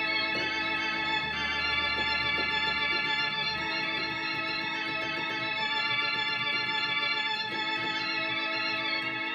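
Yamaha YC-20 combo organ playing sustained chords and melody over a bass line, on a full drawbar registration with vibrato off. The chords change every one to two seconds.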